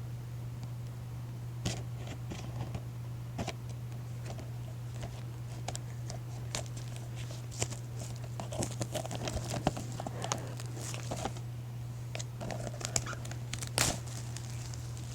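Plastic shrink-wrap being torn and crumpled off a DVD case: irregular crinkling, tearing and clicks of handling, over a steady low electrical hum.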